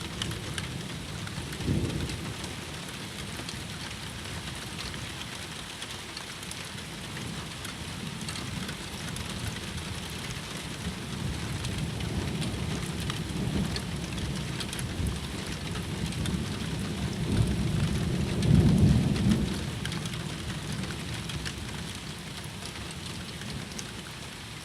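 Thunderstorm: rain falling steadily, with low thunder rumbles, a short one about two seconds in and a louder, longer rumble about three-quarters of the way through.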